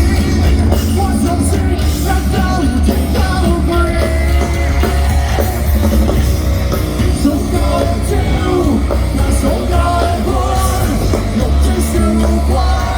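A live rock band playing loudly, with a heavy, continuous bass.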